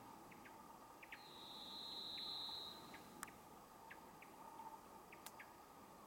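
Varied thrush singing one long whistled note held at a steady pitch for nearly two seconds, starting about a second in. Faint short chips sound throughout, and there are two sharp clicks later on.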